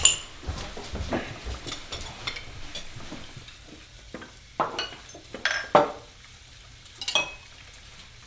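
Plates, glasses and cutlery clinking and knocking as a dining table is cleared: scattered short chinks and clatters, the loudest a few about halfway through and one just after 7 seconds.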